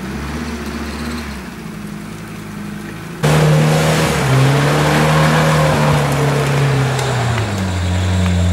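UAZ-469 off-roader's engine running at moderate revs. About three seconds in it suddenly revs hard as the wheels spin and throw mud, then the pitch sags and drops as it labours through the mud.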